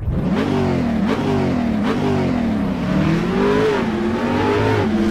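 A car engine being revved repeatedly, its pitch rising and falling several times.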